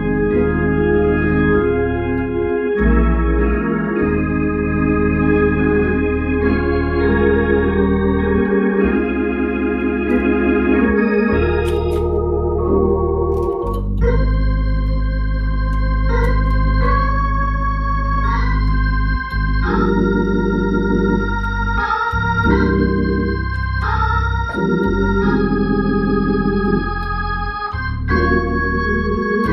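Two-manual console organ playing slow, sustained gospel chords over held bass notes. About halfway through, the tone turns brighter and more cutting.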